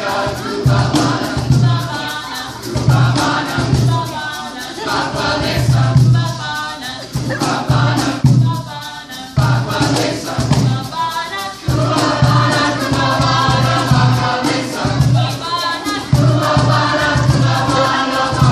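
Mixed youth choir singing an African call-and-response song, over a steady low beat about twice a second and a shaker.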